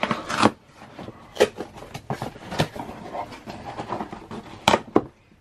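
Cardboard shipping box being handled and moved by hand: irregular scrapes, taps and rustles of cardboard, with several sharper knocks, the loudest about a second and a half in and near the end.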